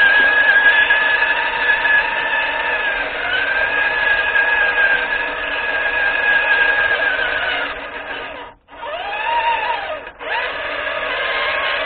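Electric motor and gears of an HPI Venture Toyota FJ Cruiser RC scale truck whining steadily, picked up by the camera riding on the truck. About eight and a half seconds in the whine cuts out, rises and falls in pitch once, cuts out again, then carries on.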